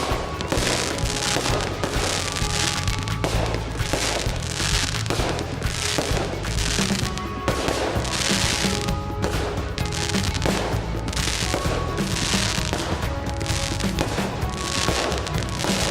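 Fireworks display going off without a break: one crackling, hissing burst after another, about one a second, over low bangs.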